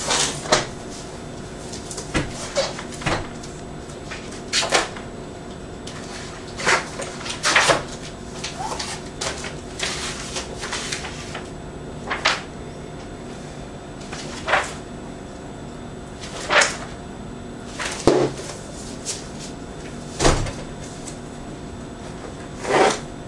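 Paper being handled: a large book's pages and a newspaper turned and flicked, giving a sharp paper slap every second or two with some rustling between. A steady faint hum runs underneath.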